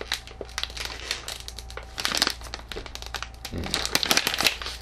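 Plastic snack bag crinkling in irregular flurries as it is twisted and pulled with both hands in a struggle to get it open; the busiest flurry comes near the end.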